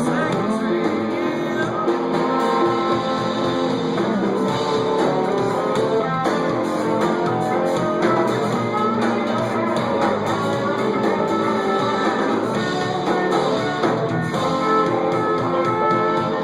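Live band playing, with guitar to the fore, at a steady level.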